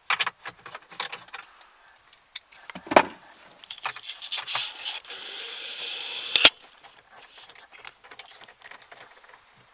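Metal hand tools and bolts clicking and clinking while the dash bolts holding the radio unit are taken out, with a loud knock about three seconds in and a short steady rasp that ends in a sharp click about six and a half seconds in.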